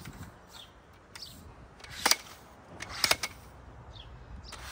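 Sharp clicks of a roof-top tent's ladder locks snapping as the ladder sections are collapsed to stow it: one click about two seconds in, then two in quick succession about a second later.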